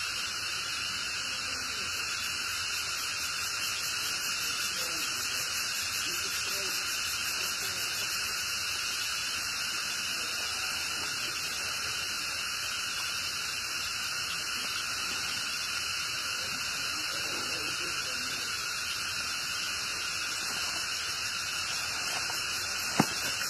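Dense insect chorus, an even hiss, broken by a single sharp click near the end.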